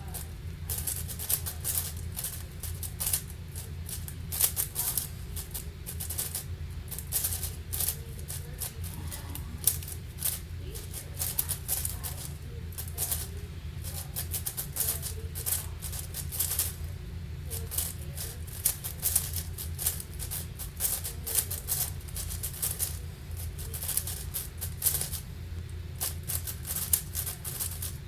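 7x7 speedcube (Angstrom AoFu WRM) being turned fast by hand: a dense, continuous run of plastic clicks and rattles from rapid layer turns.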